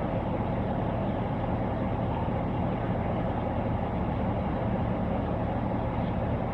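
Steady low hum of an idling police squad car, heard from inside its cabin.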